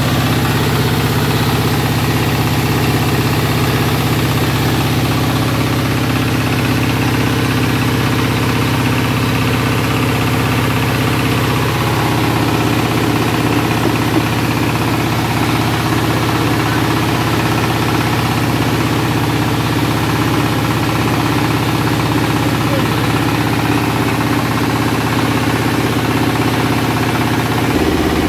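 Small stationary diesel engine running steadily under load, driving a rice milling machine as milled rice pours out. The steady hum of the engine and mill shifts slightly about twelve seconds in and again near the end.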